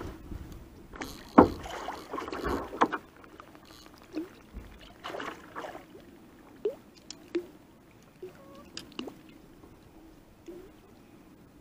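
Handling noise in an inflatable kayak: scattered knocks, taps and rubs of gear and rod against the boat, the loudest about a second and a half in, over a low steady background.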